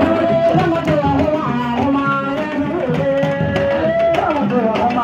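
Music with fast hand drumming under a melody line whose held notes slide up and down in pitch.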